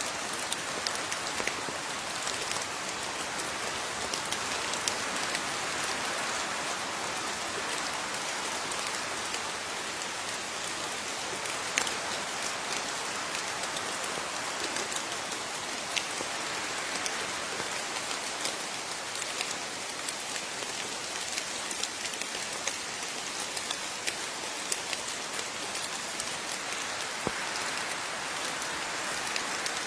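Steady rain with many individual drops ticking sharply on a hard surface, scattered clicks over an even hiss.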